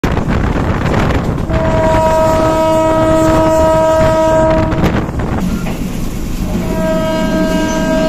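Diesel locomotive horn sounding two long blasts, each a steady chord of several tones, over the rumble and rail clatter of the moving train. The first blast starts about a second and a half in and stops near five seconds; the second starts about six and a half seconds in.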